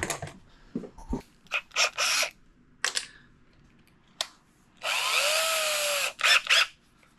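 Power drill with a thread tap chucked in it, run in one burst of about a second near the middle, its motor whine rising and then falling. Short clatters of tools being handled come before and after it.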